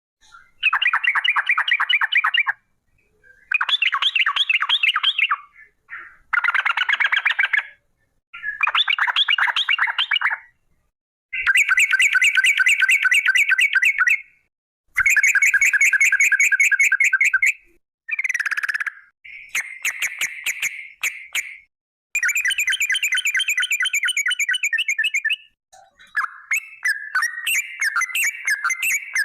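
Yellow-vented bulbul (trucukan) singing in long 'ropel' runs: very fast rattling chatters of repeated notes, about ten runs of one to three seconds each, broken by short pauses.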